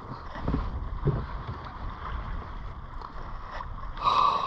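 Sea water lapping against a fishing kayak's hull, with wind on the microphone and a few light knocks. A brief louder burst with a faint whine comes near the end.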